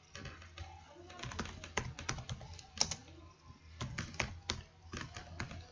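Typing on a computer keyboard: a run of irregular key clicks, several a second, as a search word is typed, over a faint steady low hum.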